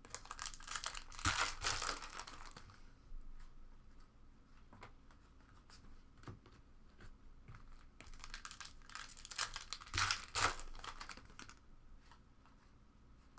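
Trading-card pack wrappers being torn open and crinkled, in two spells: at the start and again past the middle, with light clicks of cards being handled in between.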